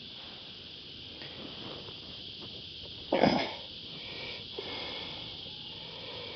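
Steady chorus of cicadas droning in the trees, with a short, loud rush of noise about three seconds in.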